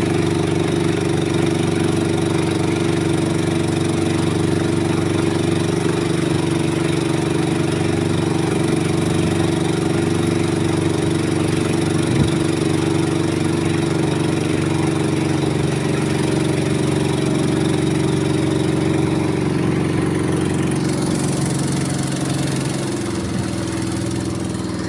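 Small boat's motor running steadily at speed, with water rushing and splashing along the hull. A couple of seconds before the end the engine eases off slightly and gets a little quieter.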